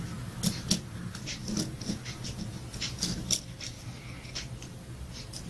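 Light, irregular clicks and taps of a small screwdriver and small parts against a Husqvarna 440 chainsaw carburetor body as it is reassembled by hand, most of them in the first three seconds and one more near the end.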